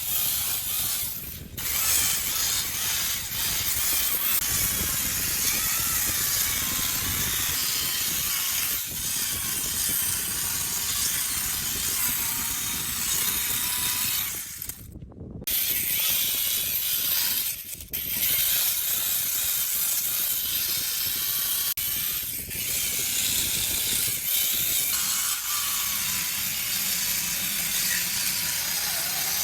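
Chainsaw running and cutting into wood, its pitch wavering with the throttle, with a few brief breaks, one about halfway through.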